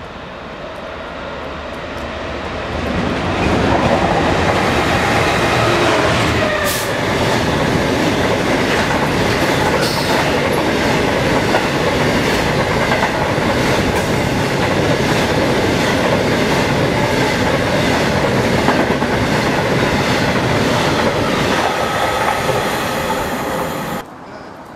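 Class 66 diesel locomotive with its EMD two-stroke V12 growing louder as it approaches at speed, its note falling in pitch as it passes about six seconds in. A long rake of covered freight wagons follows, running past with a steady clickety-clack over the rail joints. The sound cuts off suddenly near the end.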